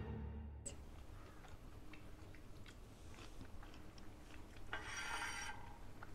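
Faint eating sounds: someone biting into and chewing canned silkworm pupae, with small scattered clicks of mouth and utensils and a brief rustle about five seconds in.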